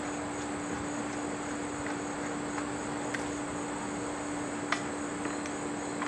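Steady background hiss with a constant low hum, and a few small clicks of a screwdriver working the compressor's ground-wire screw, the sharpest a little under five seconds in.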